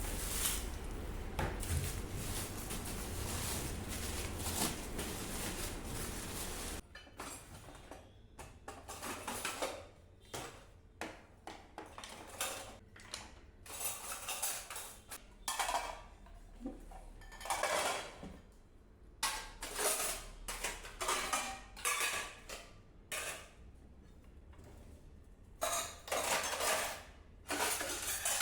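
A steady rushing noise for about the first seven seconds cuts off suddenly. Then dishes and cutlery clink and clatter in short, irregular bouts.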